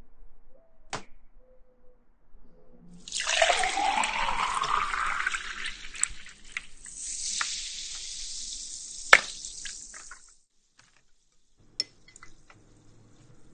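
Soda water poured into a glass, the pitch rising as it fills, then a high fizzing hiss. Ice cubes clink into the glass, the sharpest clink about two-thirds through.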